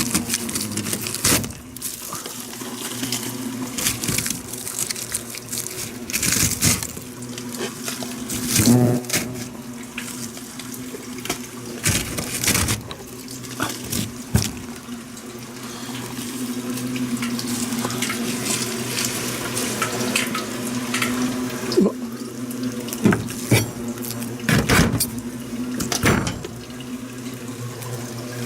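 Yellow hornets (Vespa simillima) buzzing around their disturbed nest, a steady hum broken by many short hissing bursts.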